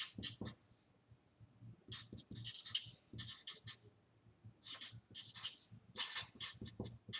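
Marker pen writing on a sheet of paper: quick strokes in short bursts, pausing briefly about a second in and again around four seconds in.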